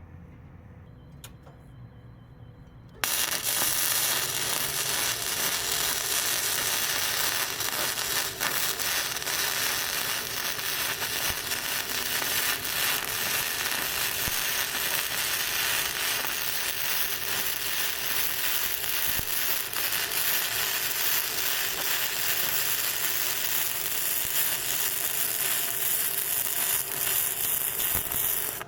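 Welding arc from a BestArc MIG145 inverter welder, striking about three seconds in and crackling and sizzling steadily through one long continuous bead. It cuts off near the end.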